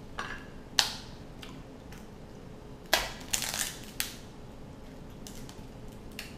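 Steamed king crab shell cracked and snapped apart by hand: sharp cracks at intervals, one loud about a second in, then a quick run of cracks about three seconds in and another just after.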